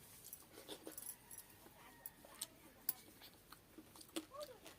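Eating sounds: irregular sharp wet clicks and smacks of mouth and fingers while eating water-soaked rice and fried fish by hand.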